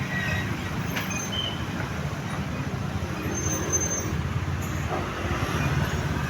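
A heavy vehicle running steadily: a low engine rumble with road and traffic noise.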